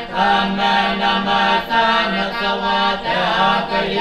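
Buddhist prayer chanting: voices reciting together on a steady held pitch, with a short dip about three seconds in.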